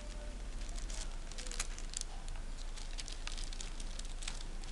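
Green crepe paper rustling and crinkling in small, irregular crackles as it is folded over by hand.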